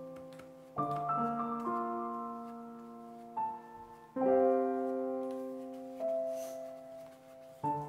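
Slow background piano music: soft sustained chords, each struck and left to fade, with a new chord about every three and a half seconds and single notes added in between.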